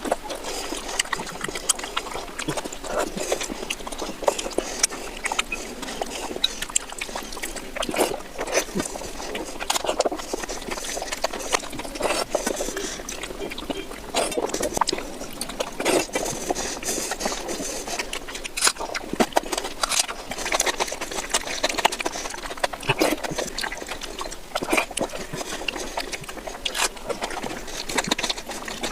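Close-miked eating of oily mutton fat curry with rice: wet chewing and lip smacking, with many irregular short clicks.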